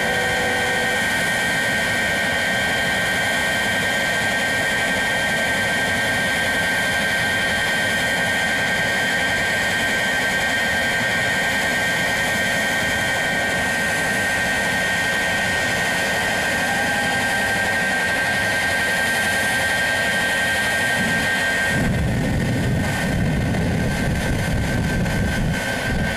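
Shockwave jet truck's jet engines running with a steady high whine. About 22 seconds in, the whine gives way to an uneven deep rumble as the engines throw flames from the stacks.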